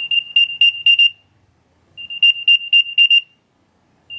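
Apple AirTag playing its find-me sound from its built-in speaker, set off from the Find My app on a paired phone: a loud, high-pitched chirping tone repeated in bursts about a second long, with a pause of about a second between bursts.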